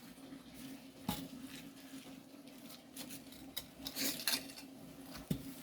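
Scattered scrapes and clinks of garden work while grass is planted, with sharper knocks about a second in, twice around four seconds, and once near the end, over a faint steady hum.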